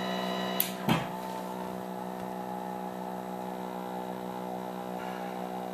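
Steady electrical hum with many overtones from a running vacuum-tube color television and its test setup, broken by two sharp clicks just under a second in.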